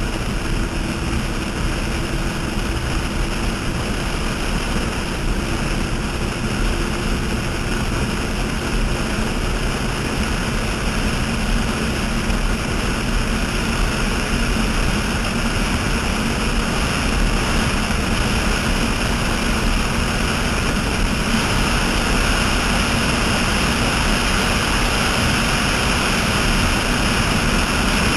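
Offshore racing catamaran running at high speed: a steady, loud mix of engine noise, spray and rushing wind that grows a little louder and brighter about three quarters of the way through.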